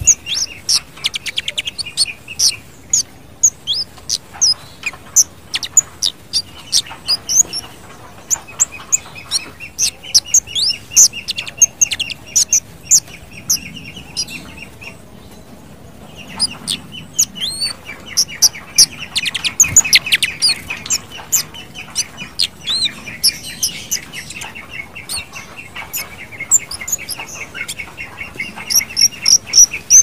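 Orange-headed thrush (kemade) singing: a busy run of short, high, sharp chirps and whistles, over a buzzy trill that comes and goes in stretches.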